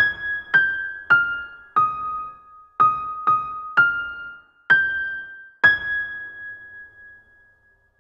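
Intro jingle: a slow melody of single chiming keyboard notes, one struck roughly every half second to second. The notes step down in pitch and then climb back up, and the last note rings on and fades out.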